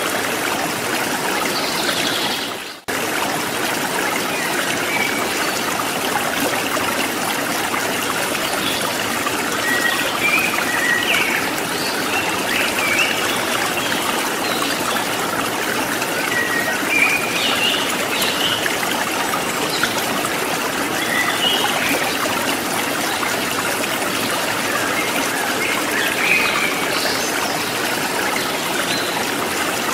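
Steady running water, like a trickling stream, with small bright splashes or chirps scattered through it; it fades out and back in briefly about three seconds in.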